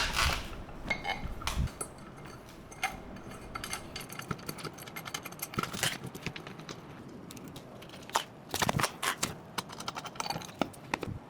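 Irregular clicks, taps and clinks of metal chair parts and fittings being handled while an armrest is fitted and bolted to a gaming chair's seat base, with a louder knock just at the start and a short run of knocks about eight to nine seconds in.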